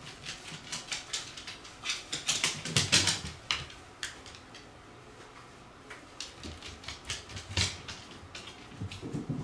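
A black Shiba Inu's claws clicking and scrabbling in quick runs of taps on a wooden floor as it tugs at a bath towel. The busiest stretch is two to three seconds in, then it thins out before a shorter run near the end.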